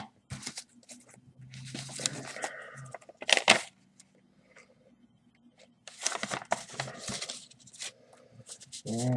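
A paper mail envelope being opened and the index cards inside slid out and handled: short irregular bursts of paper rustling and tearing, with a pause of about two seconds in the middle.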